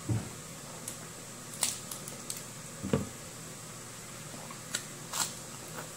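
A person biting and chewing a lettuce leaf wrapped around food: about five short, wet squishes and crunches, the loudest a little under halfway through.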